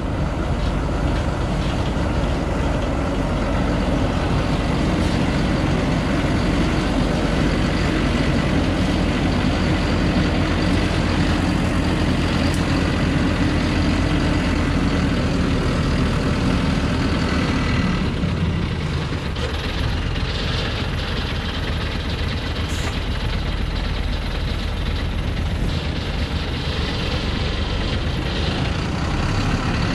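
Truck engine running as the truck drives over a rough dirt track, heard from on top of the cab. About 18 seconds in, the engine sound drops and stays lower.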